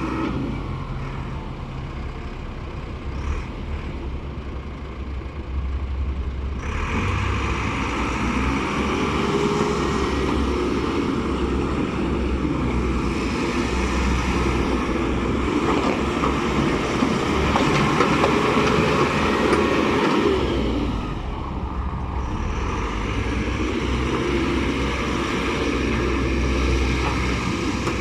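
Caterpillar 426C backhoe loader's diesel engine running, picking up revs about six seconds in with slow rises and falls in pitch, then dropping back toward idle about three quarters of the way through.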